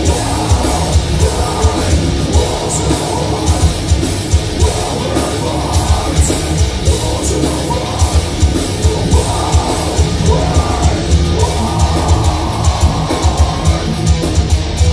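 Heavy metal band playing live: distorted electric guitars, bass and drums, with rapid, regular drum hits and a voice singing and yelling over it.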